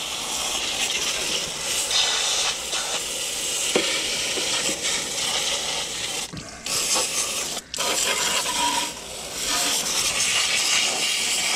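Garden-hose sprayer jetting water against the underside of a lawn tractor's mower deck: a steady hiss of spray that breaks off briefly a couple of times partway through.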